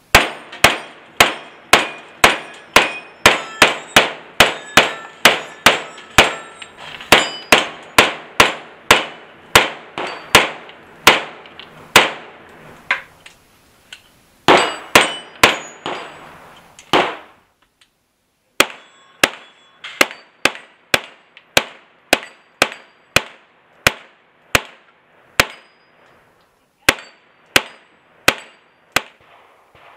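CMMG Guard MkGs 9mm semi-automatic carbine firing a long string of steady shots, about two a second, with steel plates ringing after hits. Firing pauses for about a second and a half near the middle, then resumes at the same pace.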